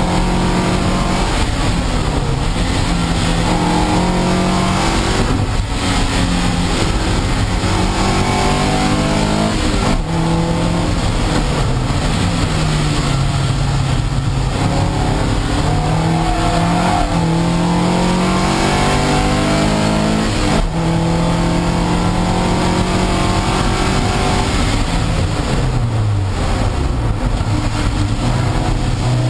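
Toyota MR2 race car's engine heard from inside the cabin, climbing in pitch through each gear and dropping at each upshift or lift for corners, over a steady hiss of tyres and spray on the wet track.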